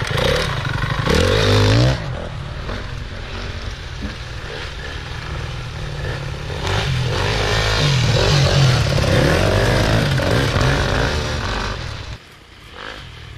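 Enduro motorcycle engines revving and changing pitch as bikes ride past, louder around a second in and again in a longer run from about seven to eleven seconds in, then falling away near the end.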